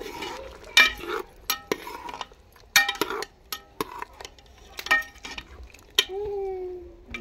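A steel ladle stirs chicken curry frying in oil in an aluminium pressure-cooker pot, knocking and scraping against the pot wall about a dozen times, each knock ringing briefly. Near the end comes a short whine that falls in pitch.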